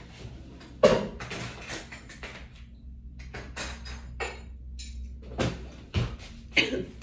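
Scattered knocks and clinks of household things being handled, the loudest about a second in, over a low steady hum.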